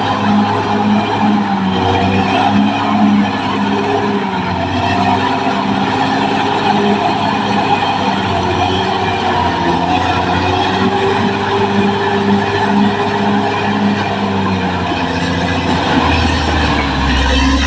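Caterpillar D6R XL bulldozer's diesel engine running steadily, with a regular pulsing about twice a second and a faint high whine that wavers slightly in pitch.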